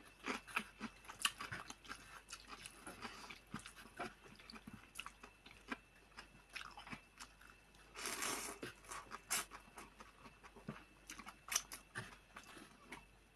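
Close-up chewing and slurping of instant noodle soup: a string of short, wet mouth clicks and smacks, with one longer slurp of noodles about eight seconds in.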